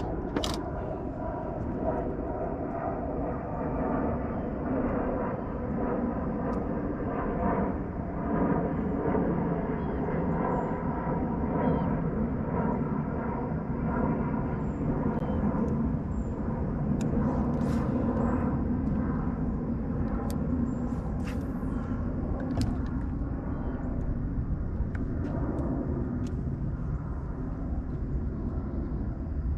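Boat's outboard motor running steadily, an even engine drone with several held tones.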